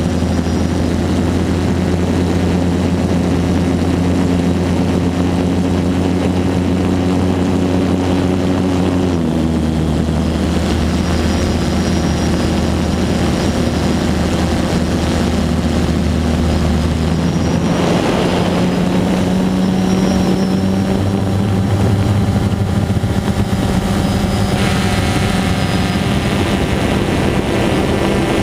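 DJI Phantom 2 quadcopter's T-Motor MN2214 brushless motors and propellers whirring steadily in flight. The pitch shifts about a third of the way in and again just past halfway as the motor speeds change.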